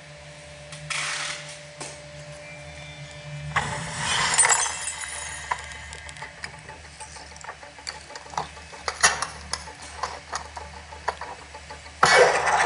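Film soundtrack from a Blu-ray playing through a Samsung HW-E551 sound bar: sustained music with loud swells about a second in, around four seconds and near the end. Scattered sharp clicks and clinks come through the middle.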